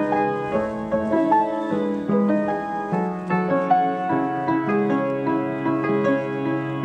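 Background music: soft piano with sustained chords and a melody moving note by note.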